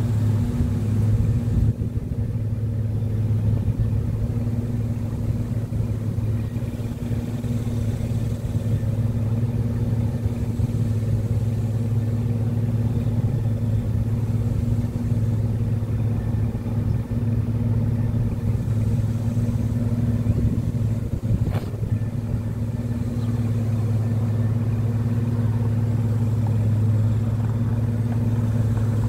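A steady low engine hum that holds the same pitch throughout, with one sharp click about two-thirds of the way through.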